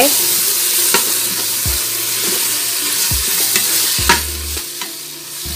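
Ground beef in tomato sauce sizzling in an Instant Pot's stainless steel inner pot on the sauté setting, with a spatula stirring and scraping the pot a few times. The sizzle is steady and eases a little near the end.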